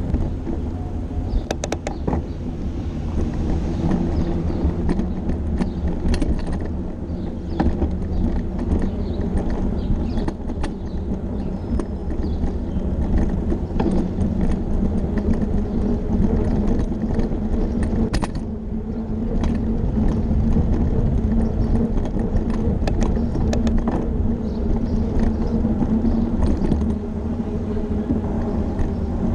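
Riding noise picked up by a bicycle-mounted camera: a steady, heavy low rumble of wind and road vibration, with frequent small rattles and clicks as the bike rolls over brick paving.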